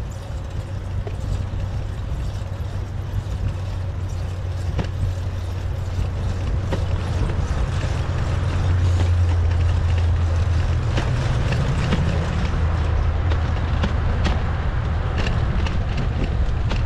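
Ride-along noise from a moving bicycle: a steady low rumble that grows louder about eight seconds in, with many light clicks and rattles throughout.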